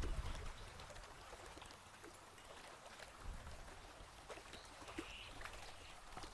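Faint riverside ambience: small ripples lapping at the muddy shoreline, with scattered small clicks. Low rumbles on the microphone swell at the start and again about three seconds in.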